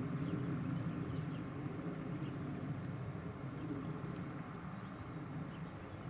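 Steady low outdoor rumble with no clear events, with a few faint short high chirps above it.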